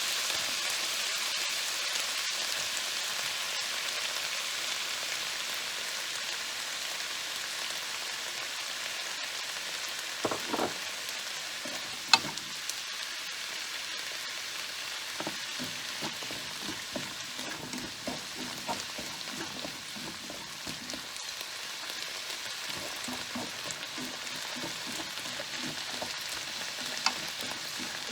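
Zucchini and chili peppers sizzling in hot oil in a frying pan as they are stir-fried, with a steady sizzle that slowly grows quieter. A utensil knocks against the pan a few times, with light scraping ticks in the second half.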